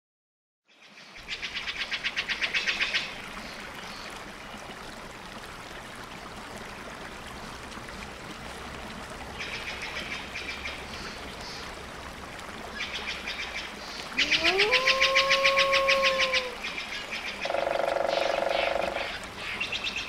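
Woodland wildlife calls: several bursts of a high, fast-pulsed trill, the loudest about two-thirds of the way in, then calls that slide up in pitch and hold it, heard twice near the end.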